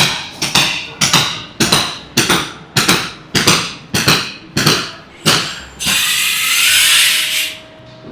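Hammer blows on a construction site, about two a second and about ten in a row, each ringing briefly. They are followed by a hissing rush of about two seconds that drops away suddenly.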